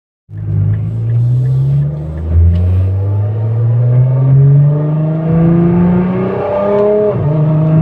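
Nissan GT-R's twin-turbo V6 heard from inside the cabin, accelerating through the gears. The engine pitch climbs, falls at an upshift about two seconds in, climbs again for about five seconds and falls at a second upshift near the end.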